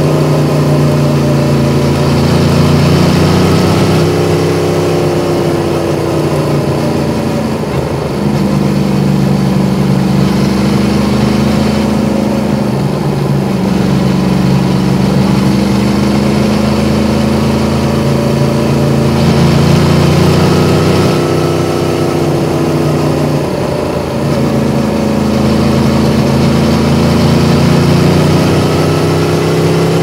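Yamaha MT-10's crossplane inline-four engine running under way on the bike, its note rising and falling with changes in engine speed. It dips briefly about 8 and 24 seconds in.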